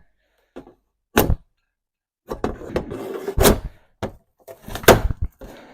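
A few sharp knocks and bangs, with rattling and scraping in between, as a restroom sign is pried off a wall with a tool.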